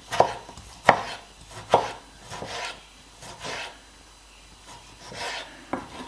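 Kitchen knife cutting tomatoes on a cutting board: three sharp knocks of the blade on the board in the first two seconds, then softer slicing sounds and another knock near the end.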